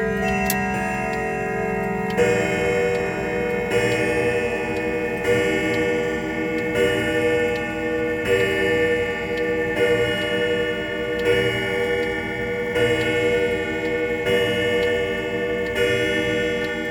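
Chime rods of a 1988 Howard Miller New Yorker grandfather clock, heard with the case open. About two seconds in, the clock begins striking the hour, one ringing stroke about every one and a half seconds, each note sustaining into the next.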